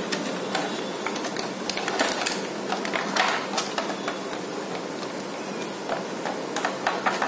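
Thin plastic packaging tray crackling and clicking in irregular bursts as it is handled and flexed, over a steady background hum.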